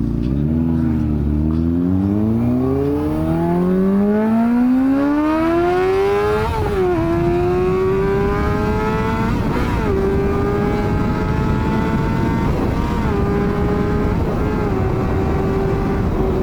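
Inline-four sport bike engine accelerating hard, its note rising steadily. About six and a half seconds in the pitch drops at an upshift, then climbs more slowly at higher speed with a few brief dips.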